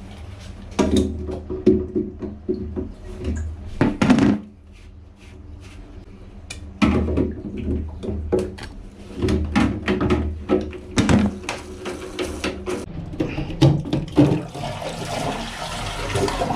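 Plastic knocks and clicks as a toilet cistern's siphon flush valve is unscrewed from beneath the tank and pulled out, with water running for the last couple of seconds.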